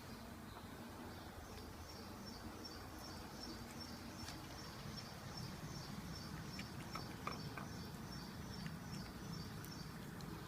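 A high chirp repeated evenly about three times a second over a low steady hum, stopping near the end, with a few faint clicks about seven seconds in.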